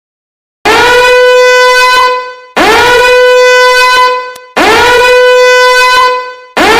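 Smartphone emergency alert tone: a loud, steady tone sounding in blasts of about two seconds with short gaps between, three full blasts and a fourth starting near the end.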